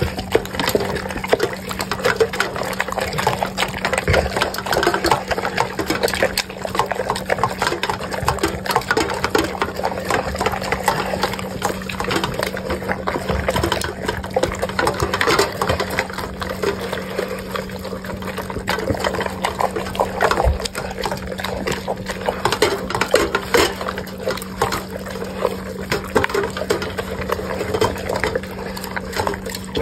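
Cane Corso eating a wet mash from a stainless steel bowl: continuous wet lapping and chewing with frequent small clicks. A steady low hum runs underneath.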